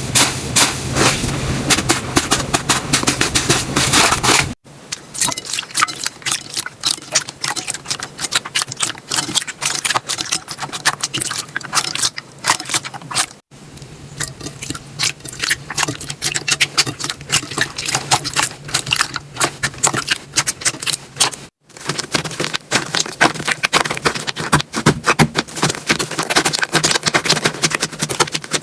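Slime being squished, poked and stretched by hand, making dense, irregular wet clicks and crackles. Three brief drop-outs split it into separate clips.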